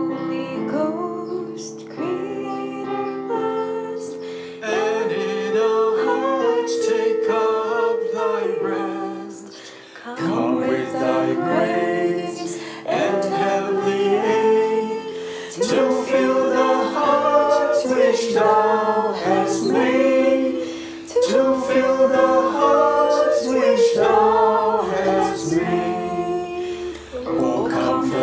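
Mixed men's and women's voices singing a hymn together over instrumental accompaniment with held chords.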